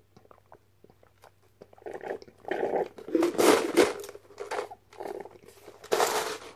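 A person drinking tea from a large fast-food cup held up to the mouth, with loud, irregular slurping and gulping close to the microphone starting about two seconds in. A last short burst comes near the end as the cup comes down.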